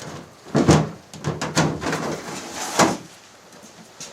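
The lid of a hot pressure washer being lifted off: a series of clunks and rattles, with the loudest knocks about a second in and near three seconds.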